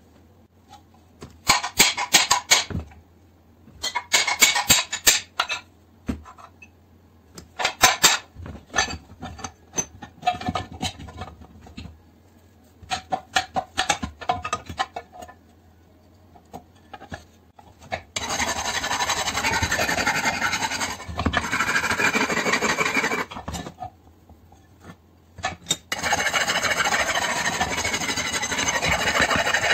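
Hand tool scraping and rubbing on an aluminium air-compressor crankcase in short bursts of quick strokes. From about two-thirds in it gives way to two long stretches of steady, harsh rasping.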